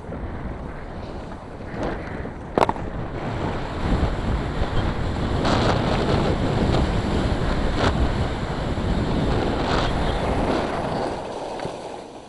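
Wind buffeting the camera's microphone as it moves down a ski slope: a rushing noise that builds about four seconds in and dies away near the end. A sharp click comes about two and a half seconds in.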